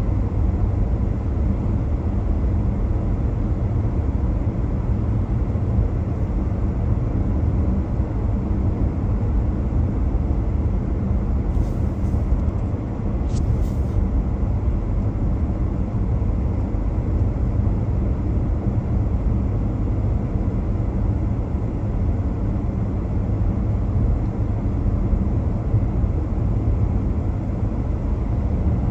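Car driving along a city street: a steady low rumble of engine and tyre noise on the road.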